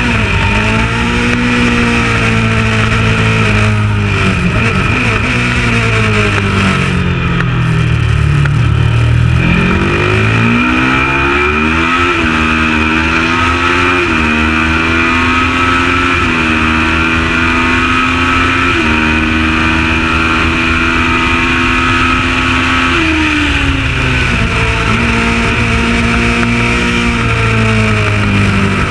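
Kawasaki ER650 parallel-twin race bike engine at full race pace, its pitch rising and falling with throttle and gear changes. It drops low about eight seconds in, then climbs again and steps through the gears.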